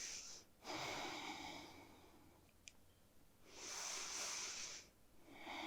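A person breathing slowly and deeply, the yoga breath of a held pose. Three long breaths each last about a second, with quiet pauses between them.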